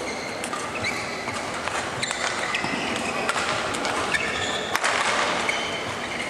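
Indoor badminton hall ambience: a steady murmur with many short high squeaks and a few scattered sharp knocks, the loudest just under five seconds in.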